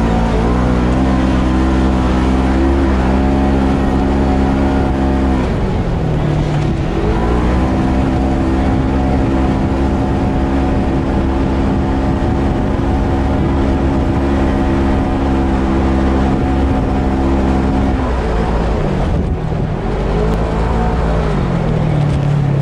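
Polaris RZR 1000 side-by-side's engine running at high, steady revs under throttle. The revs fall away about five seconds in and climb back up a second or two later, then drop again about eighteen seconds in, with a brief rise and fall near the end.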